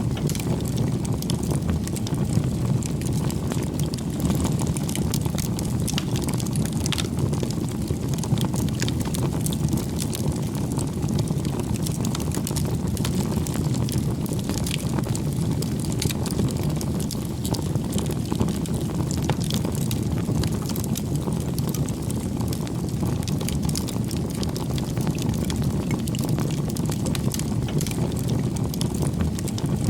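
Bonfire burning: a steady low rush of flame with frequent small, sharp crackles and pops of burning wood scattered throughout.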